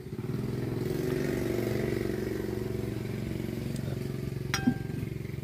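A small engine running steadily at idle close by. About four and a half seconds in there is a single sharp click, like a utensil tapping a bowl.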